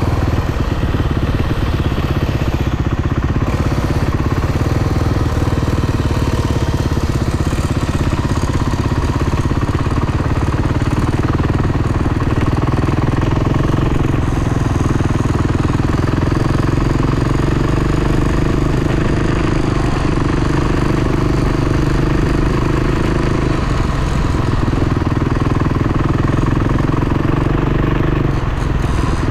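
Off-road dirt bike engines running under way, with a steady pitch that shifts a little as the throttle changes.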